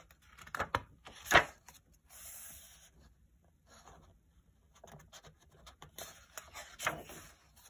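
Pages of a hardcover picture book being turned twice: paper rustling and rubbing, with a sharp tap about a second and a half in.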